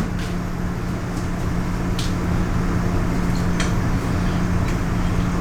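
Steady low mechanical hum with one constant low tone, with a few light clicks and taps scattered over it.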